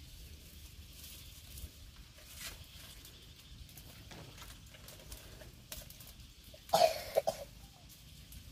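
A person gives a short double cough about seven seconds in, over a quiet background with a few faint light clicks.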